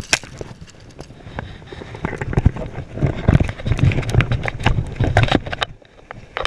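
Close handling noise of fishing tackle: irregular clicks, knocks and rustling, with a heavier low rumble of movement from about three seconds in to past five seconds.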